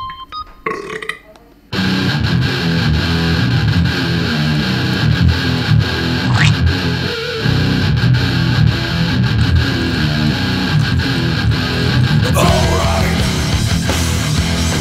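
Loud guitar-driven rock music with electric guitar, kicking in suddenly about two seconds in after a short quieter stretch.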